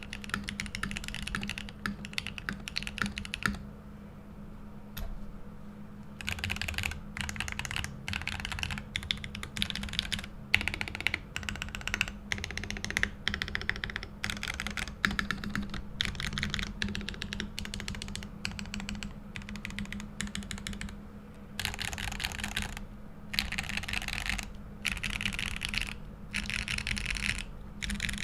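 Typing on a Mode80 mechanical keyboard with a brass plate, lubed Gateron Oil King linear switches and OTC Modo Light keycaps: runs of rapid keystrokes, with a pause of about three seconds a few seconds in.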